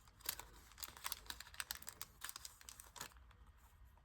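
Crinkling of a foil trading-card pack wrapper and cards being handled: a quick run of small rustles and clicks for about three seconds, then it goes quieter.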